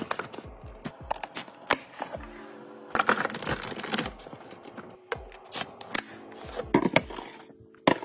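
Cellophane snack wrappers crinkling and rustling, with irregular light clicks and taps as wrapped snacks are set into clear plastic storage containers, over soft background music.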